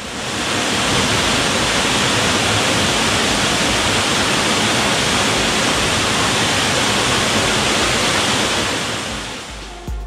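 Steady rushing of a waterfall pouring into a pool, fading in at the start and fading out near the end.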